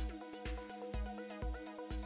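Background music with a steady beat, about two beats a second, under a melodic line.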